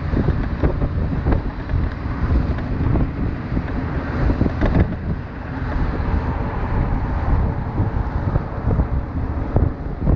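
Wind buffeting the microphone over a steady low rumble, with a few faint knocks.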